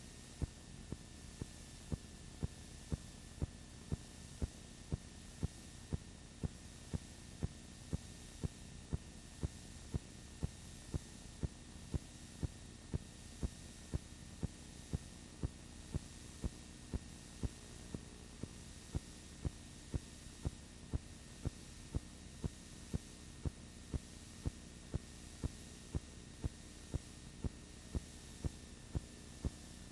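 A steady low hum with a sharp click repeating evenly about twice a second.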